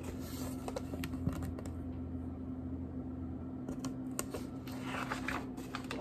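Soft paper rustles and small taps as a picture book is held open and handled, busiest about five seconds in as it is drawn back to turn the page, over a steady low hum.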